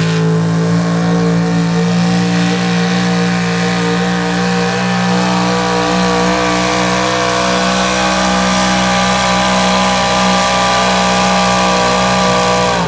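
Small-block V8 engine of a 4500-class pulling truck running flat out under load, dragging a weight-transfer sled. The engine holds a loud, steady high pitch throughout.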